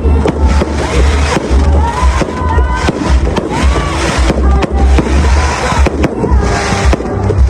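Fireworks display: a dense run of bangs and crackles, mixed with loud music that has a heavy, pulsing bass.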